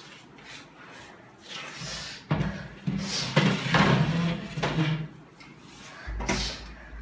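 A metal-framed chair dragged, shoved and knocked about on a tiled floor, loud scraping and clatter starting about two seconds in, then heavy thuds of furniture near the end.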